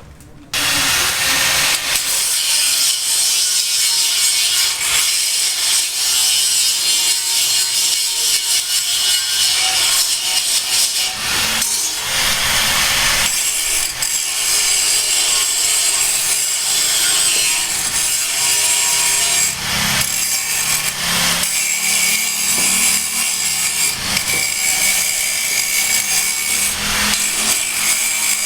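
A power tool cutting or grinding, a continuous harsh noise that starts abruptly about half a second in and keeps going, with a brief let-up near the middle.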